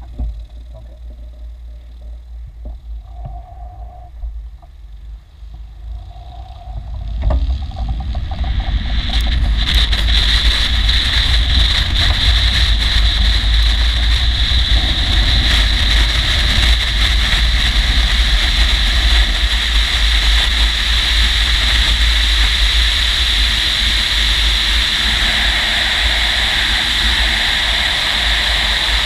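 A glider begins its takeoff roll on aerotow. It is fairly quiet at first, then comes a single knock about seven seconds in. After that a loud, steady rush of wind and wheel rumble builds within a couple of seconds and holds as the glider speeds along the runway behind the tow plane.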